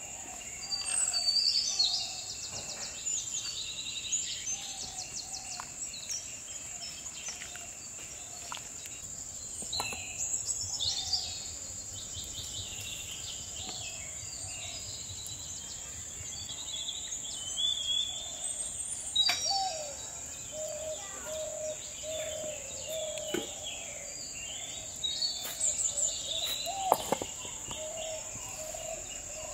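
Birds chirping and calling over a steady high-pitched insect drone, with runs of short repeated lower-pitched calls here and there.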